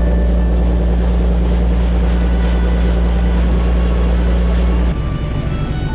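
Fishing boat running under way: a loud, steady low engine drone with a rushing noise over it. About five seconds in the sound cuts to a rougher, quieter run of the boat, and music comes in near the end.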